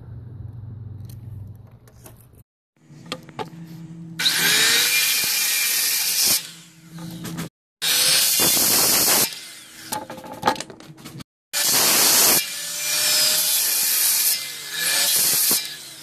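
Skilsaw circular saw cutting through a 2x12 board in four loud runs, each stopping abruptly, after a few seconds of quieter handling clicks.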